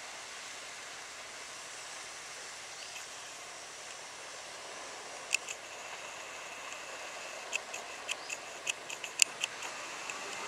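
Steady hiss of a passenger train rolling away along the track. From about halfway there is a run of short, high squeaks at irregular intervals.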